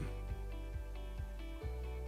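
Background music with gentle plucked notes over held tones.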